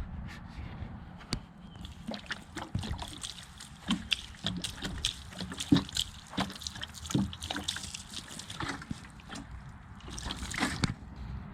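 Water poured onto a freshly sawn tulip poplar board, splashing and dribbling off the wood in many small irregular splashes.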